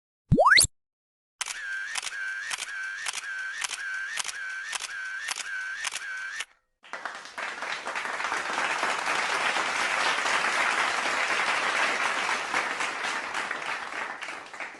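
Sound-effect sequence: a quick upward slide whistle lasting a fraction of a second, then a run of clicks at about three a second for roughly five seconds, then applause that swells and fades over about eight seconds.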